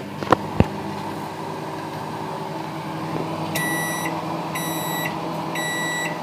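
Microwave oven running a 5-second heating cycle with a steady hum, after two sharp clicks near the start. About three and a half seconds in, it begins beeping: three high beeps about a second apart, signalling the end of the cycle.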